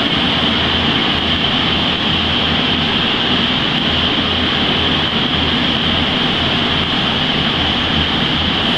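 Steady, unchanging mechanical drone: a loud rushing noise with a low hum under it, running without a break.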